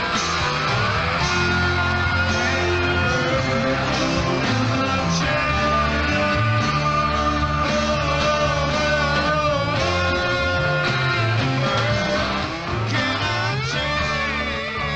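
Rock music with guitar, some of its notes sliding up and down in pitch.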